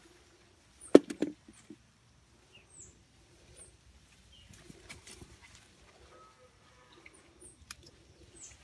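Footsteps of rubber boots through weeds and leafy garden plants, with soft rustling and a sharp knock about a second in. A few faint, short, high chirps of small birds come through now and then.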